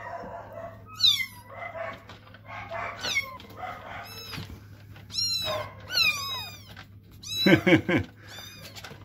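Several young kittens mewing over and over, thin high cries that fall in pitch, crying for food, with one louder, lower call about seven and a half seconds in. A steady low hum runs underneath.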